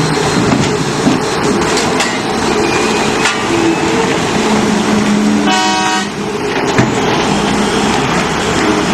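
Mining rope shovel dumping rock into a haul truck, with loud steady machinery noise and rock pouring into the truck bed, and a short horn toot about five and a half seconds in.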